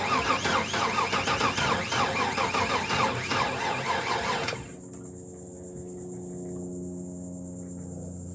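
GMC L31 5.7-litre V8 cranking on the starter motor for about four and a half seconds with an even pulsing rhythm, then stopping without catching: the no-start, while spark is being checked at the coil.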